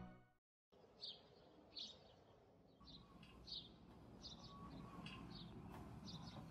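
Sparrows chirping faintly: short single chirps about once a second, over a faint steady background hiss.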